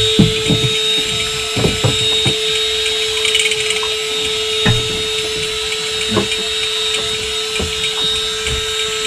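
A motor running with a steady, even hum and a thin high whine, with scattered light knocks and clicks over it.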